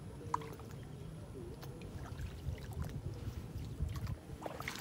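Floodwater splashing and trickling, with a few short sharp clicks, over a low uneven rumble.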